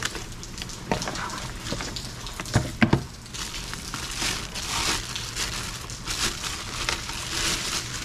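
A cardboard product box being opened and handled, with a few knocks in the first three seconds, then a clear plastic bag crinkling and rustling as the unit is pulled out of it.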